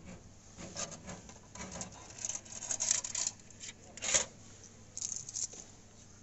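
Coins and a ticket being gathered by hand from a ticket machine's metal change tray: a string of short clinks and rustles, loudest about three and four seconds in.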